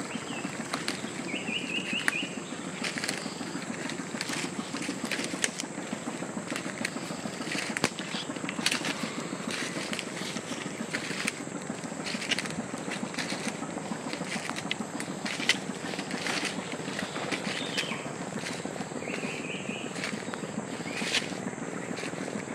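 Forest ambience: a steady low rumble and a steady high insect drone, with scattered crackles and rustles, and a bird giving a short trilling call twice, about a second in and again near the end.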